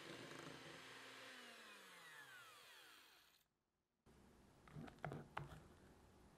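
Electric hand mixer whipping cream in a glass bowl, its motor slowing with a falling whine and stopping about three seconds in. After a short silence, a few soft clicks and scrapes as a spatula lifts the stiffly whipped cream.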